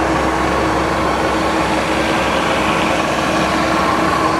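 Hwacheon HL 580 centre lathe running under power, its headstock gearing and spindle turning with a steady hum and a faint constant whine, the saddle traversing on power feed.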